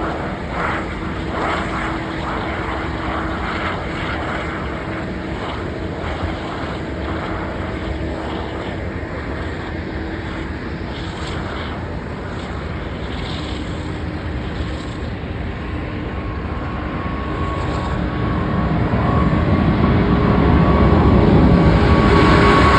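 Airbus A350's Rolls-Royce Trent XWB turbofans at takeoff power: a steady jet rumble with a whine, growing louder over the last several seconds as the airliner comes closer.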